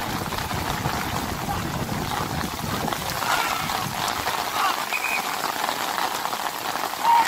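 Heavy rain falling, a steady hiss throughout, with faint distant shouts from the players now and then.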